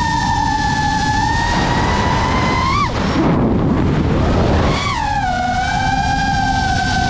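FPV quadcopter's motors whining at a high pitch, heard through the onboard GoPro. Just before three seconds in the whine rises briefly and then cuts out, leaving a rush of wind as the throttle is dropped for a dive. About two seconds later it surges back and settles slightly lower.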